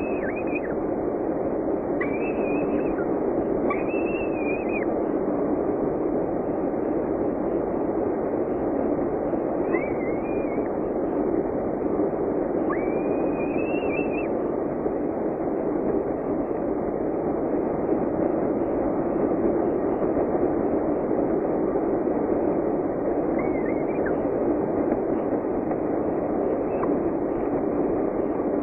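Falcon chicks giving thin, high, arched begging calls every few seconds while being fed, over a steady hiss.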